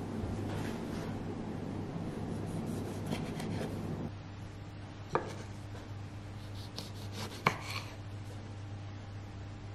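Small kitchen knife slicing through cherry tomatoes on a wooden cutting board, with soft slicing strokes and two sharp taps of the blade hitting the board, the second louder. Before that, for about four seconds, there is a low rustling noise that stops abruptly.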